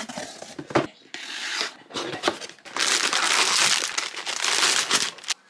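Clear plastic wrapping crinkling and rustling as it is handled. It comes in a few short bursts, then one long stretch of about two and a half seconds.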